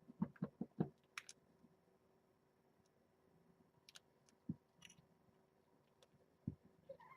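Quiet room with scattered soft taps and clicks: a quick run of about five low knocks in the first second, a few thin clicks, then two single soft thumps later on.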